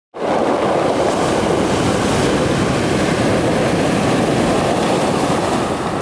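Surf washing in over a pebble beach: a steady rush of breaking waves and foam running over the stones.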